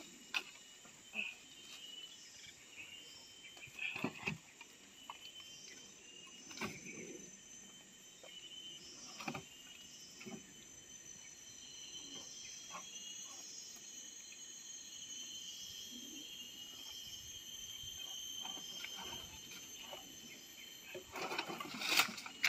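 Steady high chirring of insects, with scattered knocks and scrapes as a cut forked branch is set against a tree trunk as a ladder; the knocks come more thickly and louder near the end.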